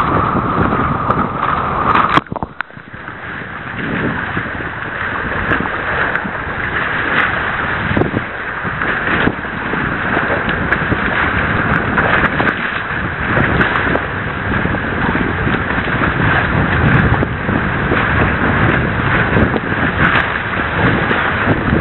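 Wind on the microphone and water splashing past the hulls of a sailing catamaran under way, a steady, loud noise with a short dip about two seconds in.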